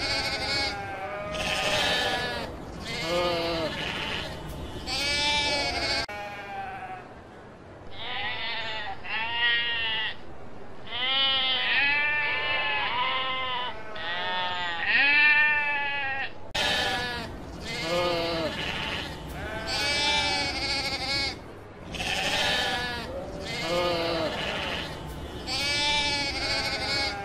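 A flock of sheep bleating, many calls one after another and overlapping, some high and some deep. For about ten seconds in the middle the calls sound more muffled.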